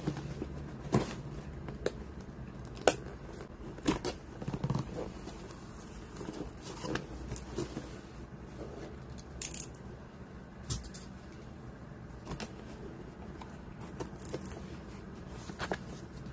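Scissors cutting into a taped cardboard parcel, with sharp snips and clicks packed into the first few seconds. After that come scattered taps and paper-and-cardboard rustles as the contents are handled.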